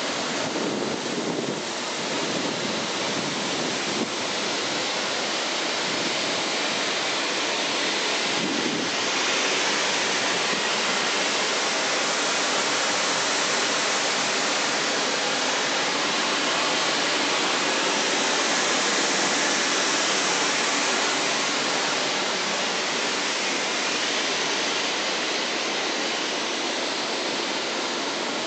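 Steady rushing air noise without gusts or breaks, typical of the electric blower that keeps an inflatable bungee run inflated.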